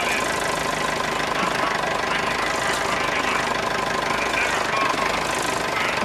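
Vintage tractor engine running steadily under light load as it pulls a potato harvester slowly along the drill.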